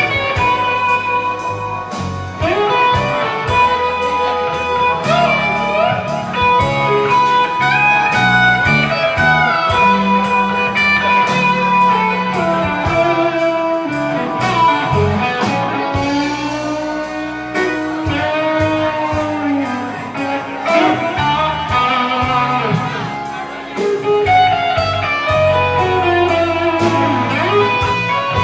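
Live blues band playing an instrumental passage of a slow blues: an electric guitar lead with bending notes over steady drums, bass and Hammond organ.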